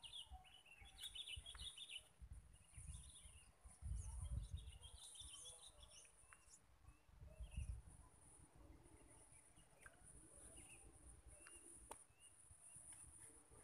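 Faint rural ambience: small birds chirping in short bursts over a steady high insect drone, with a few low rumbles.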